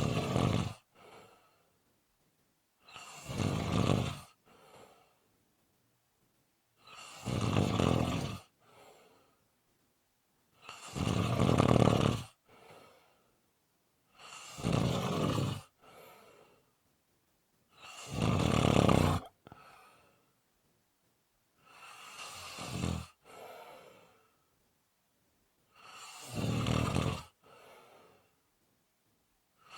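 A person snoring: about eight loud snores at an even pace, roughly one every four seconds, each followed by a short, quieter breath, with near silence between them.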